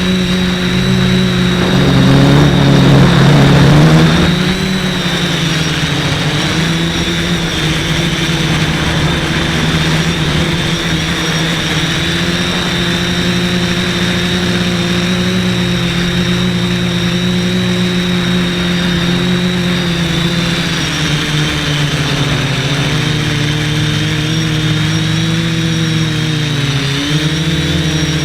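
Multirotor quadcopter's brushless motors and propellers buzzing steadily, with a high whine. The pitch shifts as the throttle changes, and there is a louder surge about two to four seconds in.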